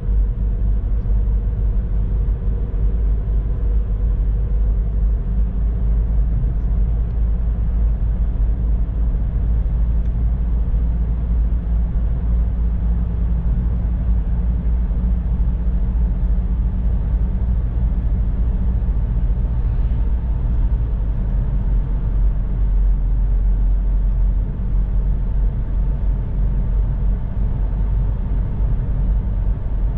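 Car driving along a road: a steady low rumble of engine and tyres, with a faint hum that shifts in pitch.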